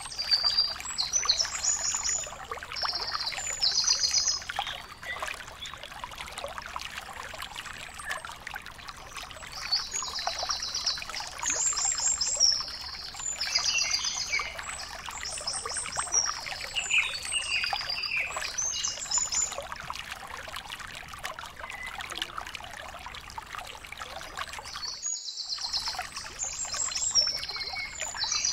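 Birds chirping in short, high, repeated calls over a steady trickling, crackling noise. The sound cuts out completely for about half a second some 25 seconds in.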